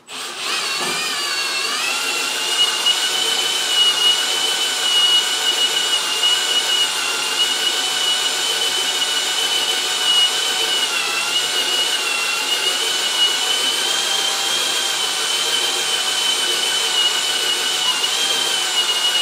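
Cordless drill spinning a Lisle 15000 cylinder hone inside the bore of a 12 hp Briggs & Stratton engine, honing the cylinder oversize: a steady high motor whine that winds up over the first couple of seconds and cuts off at the end.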